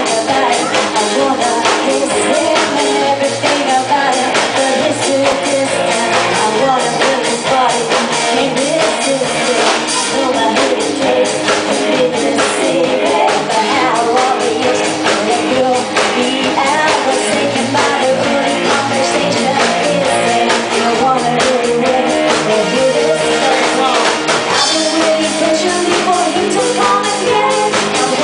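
Live band playing a pop-rock song at a steady loud level, with drums and guitar.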